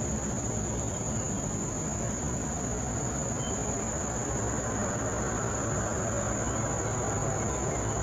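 Steady high-pitched insect drone over a constant low rumble of background noise, unchanging throughout.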